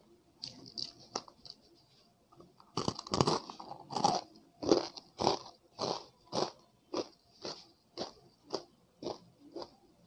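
A crisp, deep-fried chegodi (rice-flour ring snack) bitten with a loud crunch a little under three seconds in, then chewed with steady crunching about twice a second.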